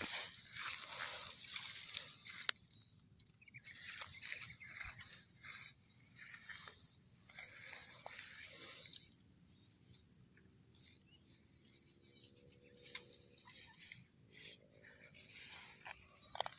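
Steady high-pitched chorus of insects in a rice paddy, with intermittent rustling and handling noises, busier in the first half.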